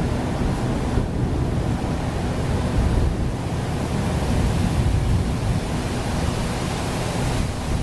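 Storm noise: a steady, loud rush of rain with wind buffeting the camera's microphone, heaviest in the low end.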